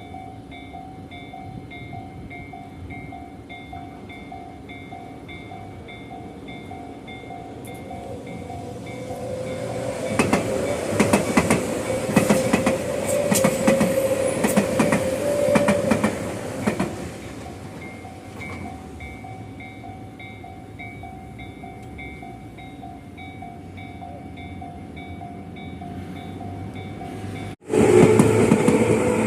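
Railway level-crossing warning bell ringing in a steady repeating pattern while a train passes, its wheels clattering over the rail joints for about seven seconds in the middle. The bell keeps ringing after the train has gone, and near the end the sound cuts abruptly to a louder, closer train running.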